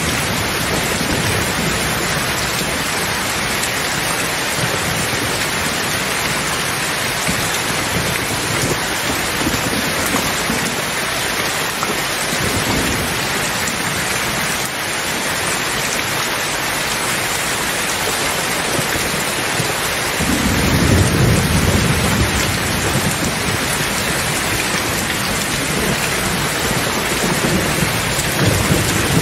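Steady rain falling through a thunderstorm, with low rolling thunder underneath. A louder rumble of thunder comes in suddenly about twenty seconds in and lasts a few seconds.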